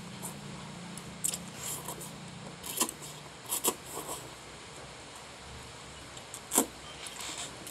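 Instant noodles being slurped and eaten with chopsticks: short hissy slurps, several in the middle, with a few sharp clicks and one loud click near the end.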